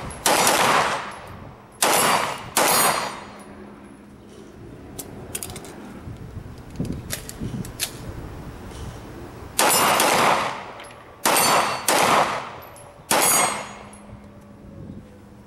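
CZ Shadow 2 9mm pistol firing: three shots in the first three seconds, then after a pause of about seven seconds four more in quick succession, each with a short echoing tail. Faint clicks can be heard in the pause.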